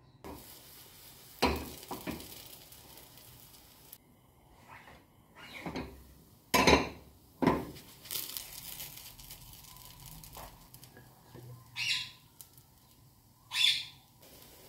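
Several short sharp knocks and clatters of a frying pan being handled on a gas stove's metal grate while the pizza base is flipped, the loudest pair a little past the middle, over a faint steady hiss.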